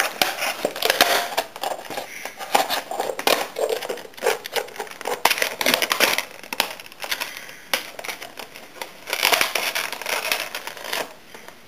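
Scissors snipping and crunching into a stiff clear plastic model-train display box, with the plastic crackling and crinkling as hands bend and work the packaging. The snips and crackles come irregularly, busiest near the end.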